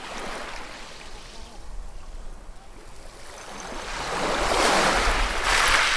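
Ocean surf: a wave swells and breaks with a loud rushing hiss over the last couple of seconds, then starts to wash back.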